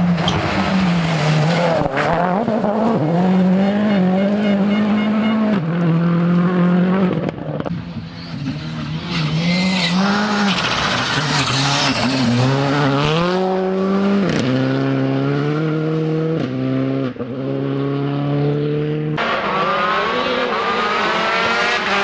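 Rally cars, including a Skoda Fabia R5, passing at speed with their engines revving hard. The pitch climbs, drops at each gear change and lift-off, and climbs again. About ten to thirteen seconds in there is a rush of tyre and gravel noise as a car slides through.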